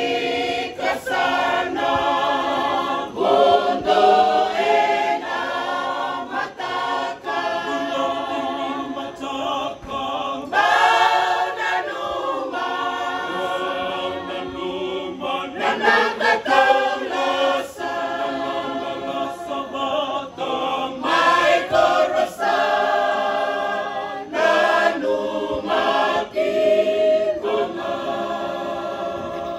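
Background music: a choir singing in sustained, wavering notes.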